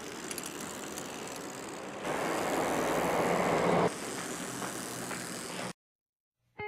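Outdoor street noise: a steady rumbling hiss that swells for about two seconds in the middle, followed by a few light clicks, then cutting off abruptly near the end.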